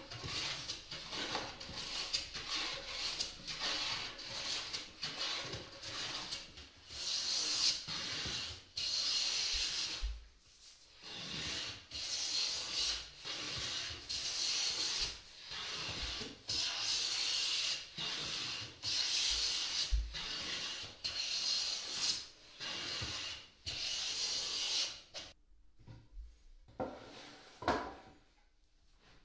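Metal hand plane taking shavings off a rough white oak board: a long run of hissing strokes, some short and quick, some a second or more long. The strokes stop near the end, followed by a couple of sharp knocks.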